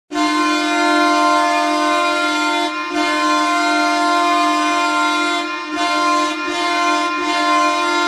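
The Ottawa Senators' arena goal horn sounding one long, steady, low chord, with a few brief dips in level.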